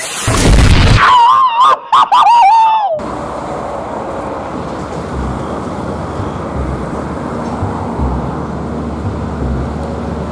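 A loud wavering, warbling tone for about two seconds that cuts off abruptly, followed by steady road traffic noise with low rumbles of passing vehicles.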